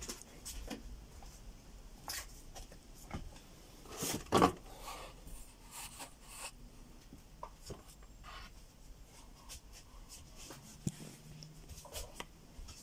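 Faint rummaging noises of someone searching through things by hand: scattered rustles, clicks and small knocks, with one louder knock about four seconds in.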